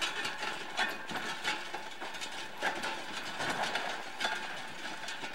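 Wooden handcart with large spoked wheels rolling over a gravel dirt road, its wheels and frame rattling and knocking with irregular clicks about once or twice a second.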